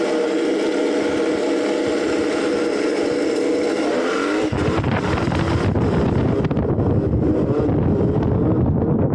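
Electric dirt bike under way, its motor and drivetrain giving a steady whine of several pitches. From about four and a half seconds in, a low rushing rumble of wind on the microphone takes over and the whine fades.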